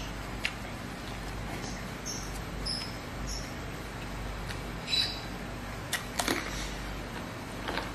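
Close-up eating sounds: wet chewing and lip smacks with small clicks, then a crisp crunch of a bite into a raw cucumber about six seconds in.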